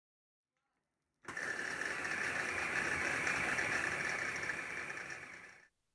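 Braun hand blender motor running in its chopper bowl, mincing meat: a steady whirring that starts about a second in and winds down just before the end.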